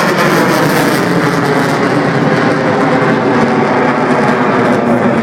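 Loud, steady jet noise from an F-15 fighter's twin engines as it flies a vertical climbing spiral.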